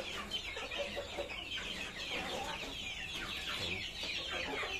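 A flock of young chickens peeping and cheeping all at once in a dense chorus of short falling calls, very noisy: hungry birds clamouring for food at feeding time.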